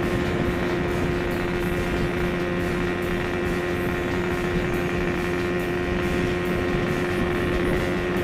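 Yamaha RX-King two-stroke single-cylinder motorcycle engine running at a steady cruising speed, its pitch holding constant with no revving or gear changes.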